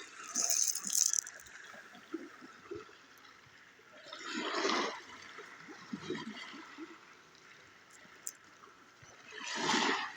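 Small sea waves washing in: two surges that swell and fade about five seconds apart, with the water trickling and gurgling in between.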